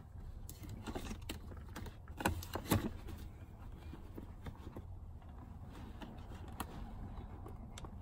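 Hands handling a convertible car seat's fabric cover and plastic shell around the seatbelt path: scattered light clicks and rustles, with a couple of louder knocks about two to three seconds in.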